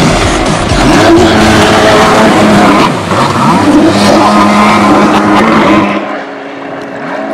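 Stand-up jet ski engine revving hard with its pitch rising and falling, over rushing water noise, then throttling back to a quieter steady running about six seconds in.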